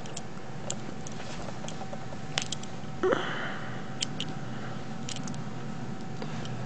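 Scattered light clicks and taps as a small black detachable rifle sight is handled and turned over in the hand, with a brief rustle about three seconds in.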